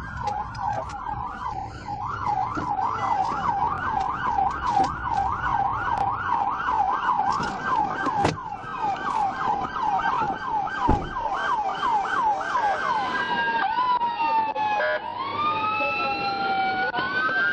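Police car siren on a fast yelp, about three sweeps a second, that switches about thirteen seconds in to a slow wail, with two wailing tones overlapping near the end.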